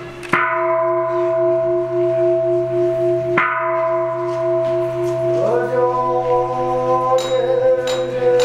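A giant Japanese temple bell (bonshō) is struck with a thud and rings on in a long hum with a slow, pulsing waver. About five seconds in, chanting voices join in over the ringing.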